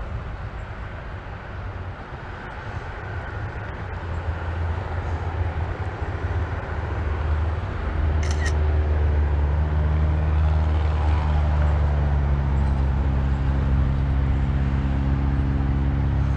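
A vehicle engine running, growing louder about halfway through and then holding a steady hum.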